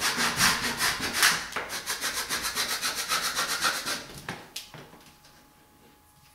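Transfer tape being peeled off a vinyl wall decal, a rapid ripping crackle that stops about four seconds in.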